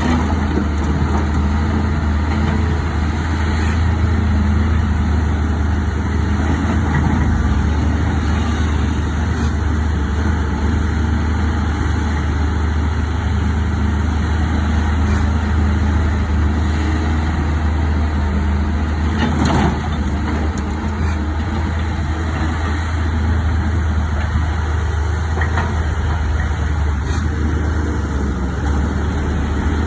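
Caterpillar 320C excavator's diesel engine running steadily while it digs rock, with a brief knock about two-thirds of the way through.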